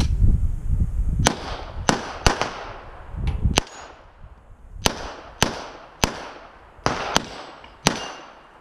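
A handgun firing about ten sharp shots at irregular intervals, some in quick pairs less than half a second apart, each followed by a short echo.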